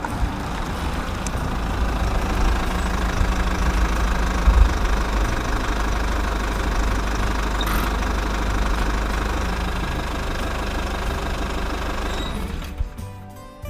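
Large vehicle engine idling steadily with a deep rumble, fading out near the end.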